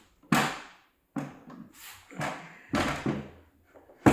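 A run of knocks and thuds, about six, as a Dobsonian telescope tube is lowered into its rocker base and its altitude bearings settle into place. The loudest knocks come about a third of a second in and right at the end.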